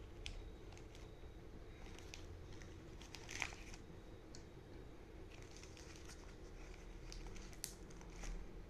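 A package being unwrapped by hand: faint crinkling and tearing with scattered light clicks, and one sharper, louder crackle about three and a half seconds in.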